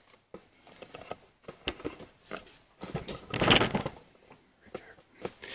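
Handling noise: scattered light clicks and knocks, with a brief louder rustle about three seconds in.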